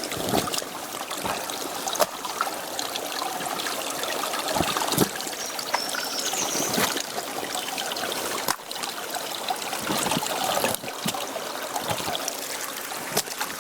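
Water trickling steadily along a shallow irrigation channel, with scattered knocks as stones are shifted by hand.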